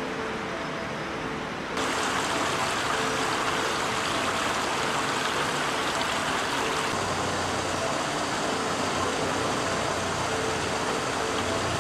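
Shallow brook running over stones and a small rocky cascade: a steady rush of water. It is quieter at first and grows louder about two seconds in.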